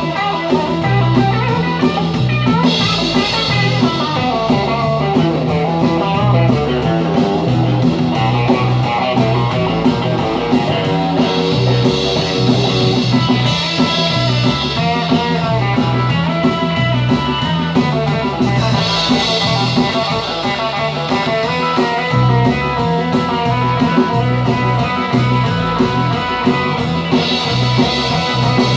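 Live rock band playing an instrumental passage: solid-body electric guitar over electric bass and drum kit, with a steady repeating bass figure and cymbals.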